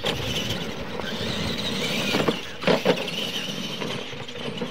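Electric Clod Buster-style RC monster trucks racing on dirt, their motors and gears giving a steady high whine. A few sharp thumps come a little past two seconds in and again near three seconds, from the trucks on the jumps.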